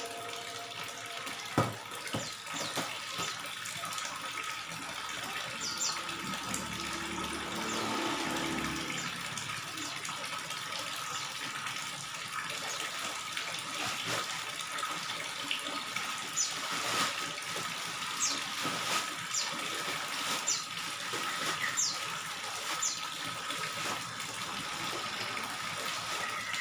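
Water pouring from an inlet pipe and splashing steadily into a koi pond. Short high chirps sound now and then over the splashing, with a faint steady whine underneath.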